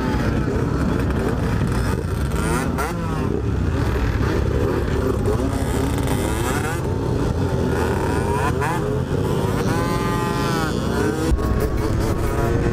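Many motorcycles and small two-stroke supermotos and scooters revving and pulling away together, their engine pitches rising and falling over one another. About ten seconds in, one nearby engine revs up sharply and drops back.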